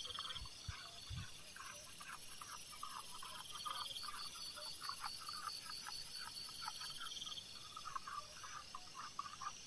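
Night-time forest chorus: insects trilling steadily at a high pitch while frogs call in many short, irregular croaks. Two soft low knocks come in the first second or so.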